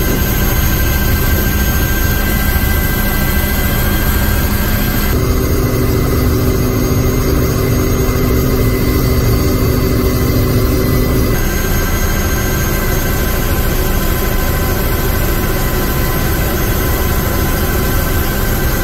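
Helicopter turbine and rotor running loud and steady. The tone changes abruptly twice, about five seconds and about eleven seconds in.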